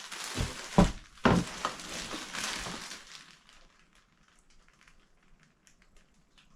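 Packaging crinkling and rustling as it is handled, with several sharp knocks in the first second and a half. After about three seconds it dies down to faint, scattered ticks.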